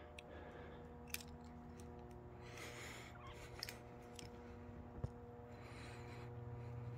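A low, steady hum with a few faint clicks scattered through it.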